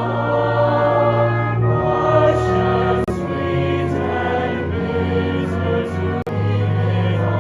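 A stage musical cast singing a song together in chorus over orchestral accompaniment, with long held notes over a steady bass.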